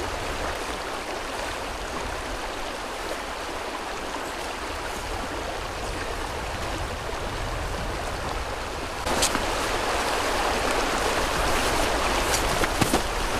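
Steady rushing of a shallow river running over gravel riffles. About nine seconds in it gets louder, starting with a sharp click, and a few light clicks follow near the end.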